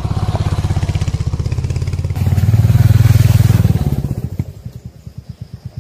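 Royal Enfield Hunter 350's single-cylinder engine running while riding, pulling harder about two seconds in. Near four seconds the throttle is let off and it falls to a quieter, slower, even beat.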